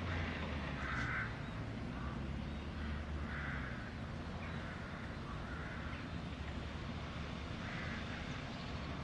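Crows cawing: a series of short harsh calls, about six, spaced irregularly a second or so apart, over a steady low rumble.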